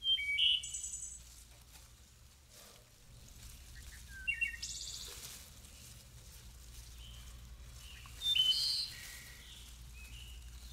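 Songbirds chirping and calling in a few short spells: near the start, around four to five seconds in, and again around eight seconds in, over a faint steady low rumble.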